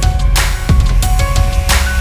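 Loud electronic background music with heavy bass and sharp drum hits.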